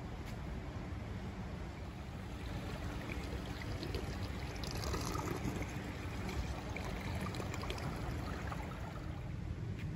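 Running water trickling at a swimming pool, louder for a couple of seconds about halfway through, over a steady low rumble.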